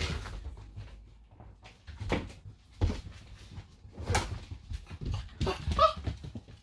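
English Springer Spaniel puppies scuffling and playing on a mat over a chequer-plate floor: irregular knocks, thumps and scrabbling, with one short yelp about six seconds in.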